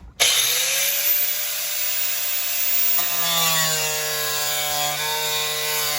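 Angle grinder with a cut-off wheel cutting through the truck cab's sheet-metal floor: the tool starts abruptly and its pitch rises as it spins up. About halfway through, the sound turns more ringing as the wheel bites into the metal.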